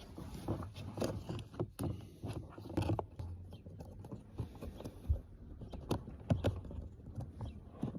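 Hands working at a plastic cabin-filter housing and trim panel: irregular clicks, knocks and scrapes of plastic parts, with rustling handling noise.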